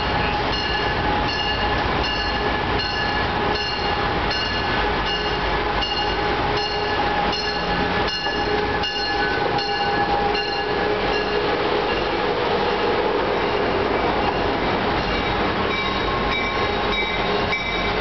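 Amtrak HHP-8 electric locomotive pulling slowly into the station and passing close by. Its bell dings about every half second until about two thirds of the way through, over the steady rumble of wheels on the rails, which then settles into a continuous hum.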